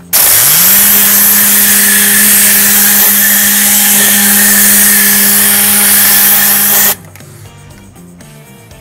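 Tornador air-powered cleaning gun spraying a cleaning solution on compressed air: a loud, even hiss with a hum that rises in pitch over the first half second as the gun's spinning tube gets going, then holds steady. It cuts off suddenly about seven seconds in when the trigger is released.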